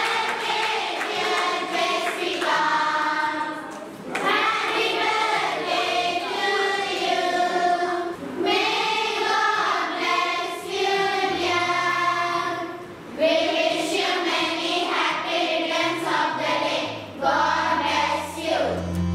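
A group of voices, children among them, singing together in phrases a few seconds long with short breaks between.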